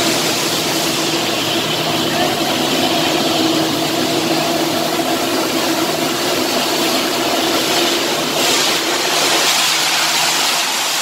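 Steady machinery drone in an industrial work area: a constant noise with a low hum. A brighter hiss joins about eight seconds in.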